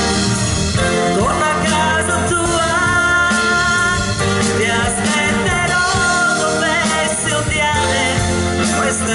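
Live band playing a rock song with electric guitars, drums and keyboards, and a wavering high vocal line over it.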